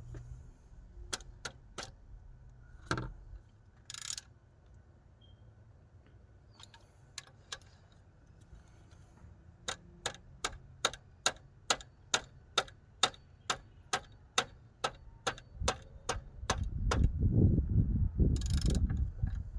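Sharp metallic clicks from a ratchet being worked on an alternator mounting bolt: a few scattered clicks, then from about ten seconds in an even run of about two and a half clicks a second. Near the end a louder low rumble takes over for a couple of seconds.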